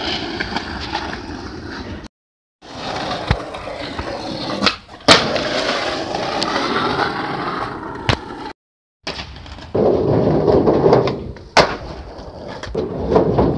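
Skateboard wheels rolling on rough asphalt, broken by several sharp cracks of the board popping and landing. The rolling cuts out twice into brief dead silence.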